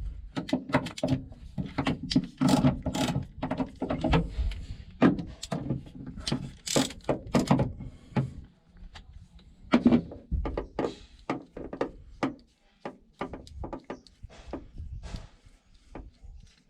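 Irregular clunks, knocks and clicks of hand tools and metal parts being handled and set down, several a second, some sharper than others.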